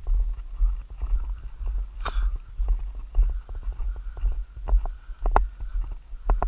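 Footsteps crunching on a gravel road at a walking pace, with low thuds from the carried camera jostling at each step.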